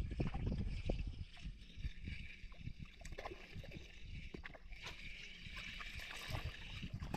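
Water sloshing and gurgling, with a low rumble and scattered short clicks and knocks throughout.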